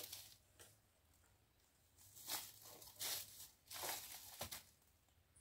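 Faint footsteps crunching on dry leaf litter, a few separate bursts of rustling and crackling.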